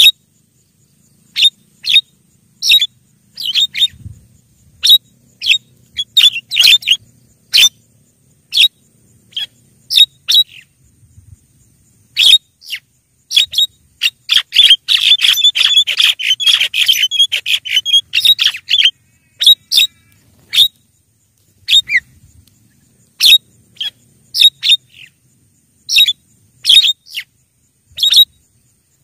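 Javan myna calls: short, sharp call notes repeated every half second or so with brief gaps, breaking into a dense run of rapid chattering from about 14 to 19 seconds in.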